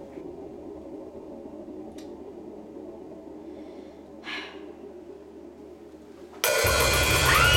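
Quiet room tone with a faint click about two seconds in and a short breath or sigh just after four seconds. Near the end, a sudden loud burst with a wavering screech over it cuts in: a horror-film jump-scare sound.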